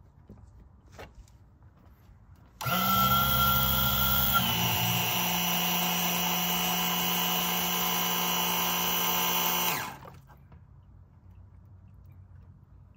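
12-volt electric oil extractor pump running for about seven seconds as it draws engine oil, mixed with engine flush, out through a tube into a sample bottle. It starts abruptly a couple of seconds in, its pitch drops a little soon after starting and then holds steady, and it cuts off near the end.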